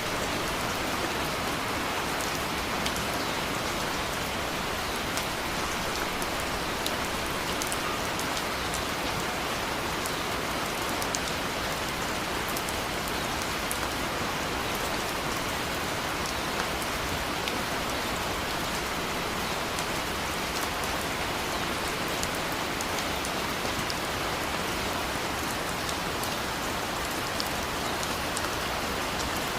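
Steady rain falling, an even hiss with individual drops ticking here and there.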